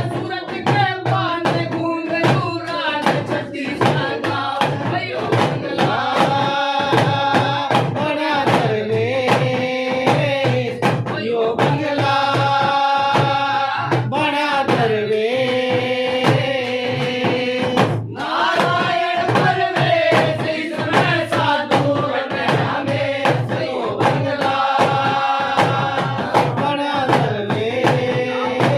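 Devotional bhajan music: a gliding melody line over steady, regular drum beats.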